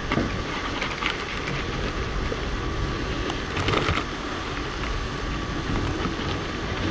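Steady rushing noise inside a soot-lined wood-stove chimney flue, with scattered scrapes and knocks as equipment rubs against the flue walls.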